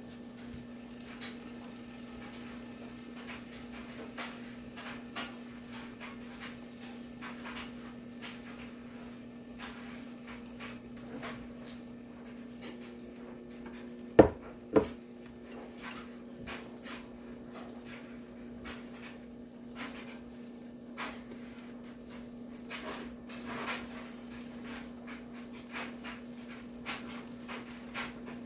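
Kielbasa cooking under a glass lid in an electric skillet: scattered small pops and crackles over a steady low hum. Two sharp knocks come about halfway through, half a second apart.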